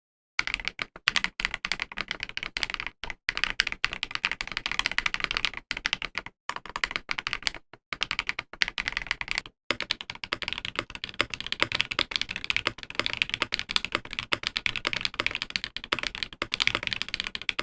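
Typing on a mechanical keyboard fitted with KiiBOOM Emerald linear switches (factory-lubed, all-polycarbonate housings, 20 mm springs): a fast, steady run of keystrokes, broken by a few brief pauses.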